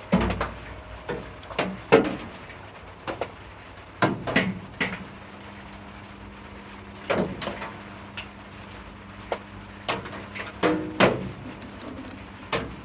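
Irregular knocks and clunks of objects being handled and set down, with a steady low hum that starts about five seconds in and carries on.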